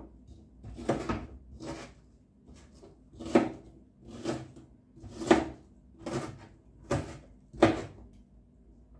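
Kitchen knife chopping a red onion on a plastic cutting board: slow, evenly spaced knocks of the blade meeting the board, about one a second.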